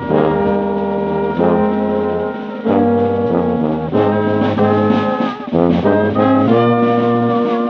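A brass band plays a slow hymn: a sousaphone carries the bass line under silver cornets and trumpets. The chords are held and change every second or so, with short breaths between phrases.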